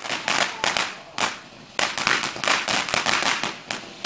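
Fireworks crackling: a fast run of sharp cracks in dense clusters, easing off briefly about a second in, then picking up again.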